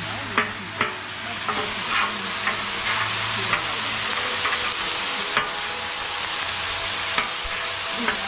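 Thin-sliced roast beef sizzling on a steel flat-top griddle while it is chopped and scraped with metal spatulas, with about a dozen sharp, irregular clacks of the blades striking the griddle.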